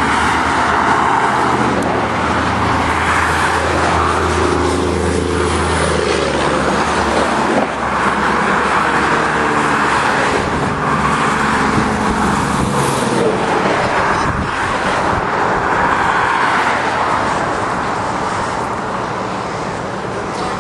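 Road traffic: motor vehicles running past with a steady low engine hum and tyre noise.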